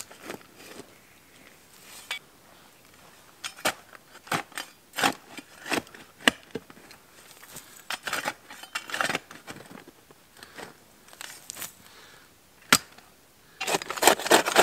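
A high-carbon steel folding entrenching tool digging into dry, gritty forest soil: irregular chops and scrapes of the blade, with pauses between, and a busier run of scraping near the end.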